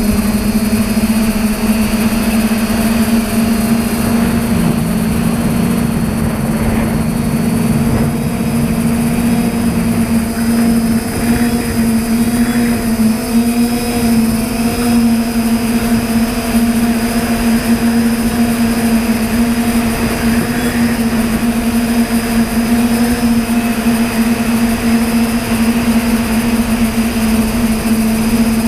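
Multirotor drone's DJI 2212 motors and 9-inch propellers in flight, a loud steady hum, heard from the GoPro carried on the drone. A second, lower tone wavers and dips between about four and ten seconds in as the motor speeds shift.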